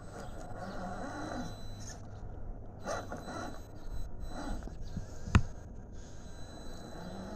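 Electric RC rock crawler with a 550 brushed motor working against a log stump and tipping onto its roof: motor and gears whirring under load over a faint steady high whine, with rough scrabbling and knocks. One sharp knock about five seconds in is the loudest sound.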